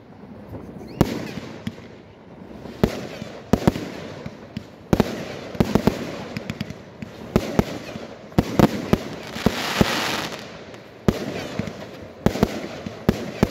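Aerial fireworks display: a rapid, irregular series of shell bursts and bangs, with a stretch of dense hiss about ten seconds in.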